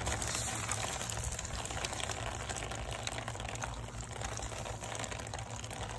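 Water spraying out of an open PVC pipe fitting where a hose bib was just unscrewed, splashing against a gloved hand held over the opening. A steady rush that eases slightly over the seconds as the supply line drains.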